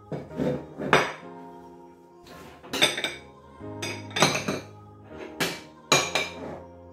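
White ceramic plates and bowls clinking and knocking against each other and a kitchen countertop as plates are set over bowls of food, a series of about eight sharp knocks.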